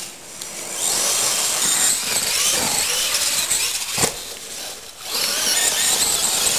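Radio-controlled monster truck driving flat out over dirt, its electric motor and drivetrain whining up and down with the throttle, with a single hard knock about four seconds in as the truck lands or hits the ground.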